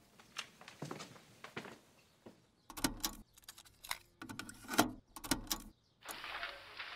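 Cassette tape handled and loaded into a hi-fi stereo's cassette deck: light plastic clicks at first, then a run of sharp clacks as the tape goes into the deck and the buttons are pressed. Near the end a steady tape hiss comes in as playback starts.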